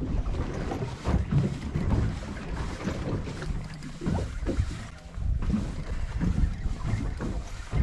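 Wind buffeting the microphone on an open boat at sea, with uneven low rumbling and water sloshing against the hull.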